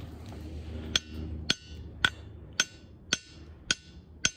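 Claw hammer striking a ringing-rock diabase boulder seven times, about two strikes a second. Each hit gives a bell-like ring at several high pitches that dies away within half a second.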